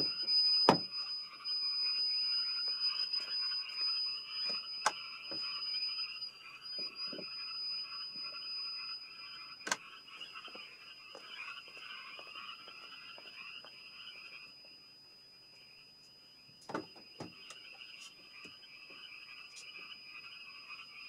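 A noise-source test setup: an electronic beeper giving a continuous high-pitched tone over a steady chorus of frog croaking sounds. A few sharp knocks and clicks come from handling at the car door, near the start, about halfway through, and again near the end.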